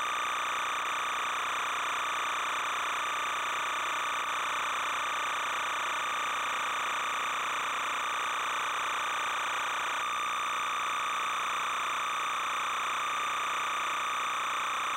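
Steady, unchanging hiss and hum, the same from start to end with its strongest part in the middle pitches: noise from the film transfer rather than any sound from the lake scene, since home 8mm film of this kind carries no sound track.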